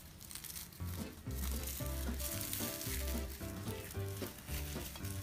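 Dry, charred corn husks crackling and rustling as they are peeled off a fire-roasted ear of corn. Background music with low, steady notes comes in about a second in.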